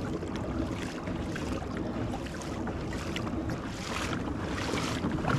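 Water washing steadily along the hull of a Perception Pescador Pilot 12 pedal-drive kayak under way, with wind buffeting the microphone.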